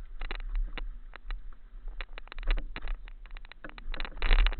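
Mountain bike clattering down a rocky trail: a quick, irregular run of knocks and rattles from tyres, frame and chain, with a low steady rumble of wind on the microphone, loudest about four seconds in. The rider says he over-inflated the tyres, so the bike bounces hard over the rocks.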